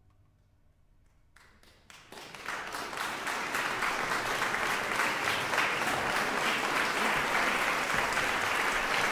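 Concert audience applauding: after a moment of near quiet, a few first claps come about a second and a half in and quickly swell into full, steady applause.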